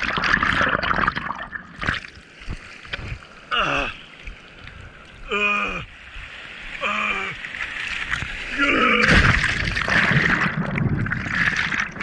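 Sea water sloshing, splashing and bubbling against a GoPro camera as it goes under the surface and comes back up in the surf. A few short pitched sounds come in the middle, and churning whitewater is loudest near the end.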